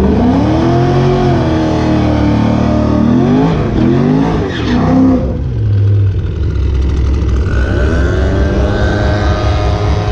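Chevrolet Camaro drag car's engine revving hard through a burnout on the starting line, its pitch rising and falling several times in the first five seconds as the rear tyres spin, then settling into a steadier drone.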